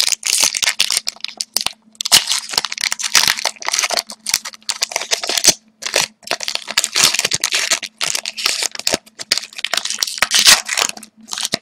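Hockey card pack wrapper being torn open and crinkled by hand, in irregular bursts of crackling with short pauses.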